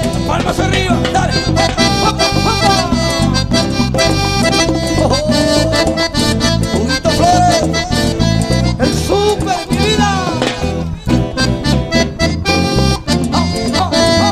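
A live cumbia band plays an instrumental passage: a melodic lead with gliding, bending notes over a steady bass beat and busy percussion.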